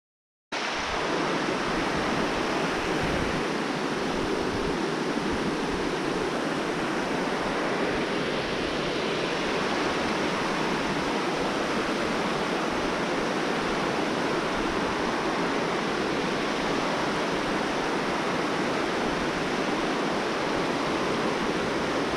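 Steady rushing of flowing river water, starting suddenly about half a second in.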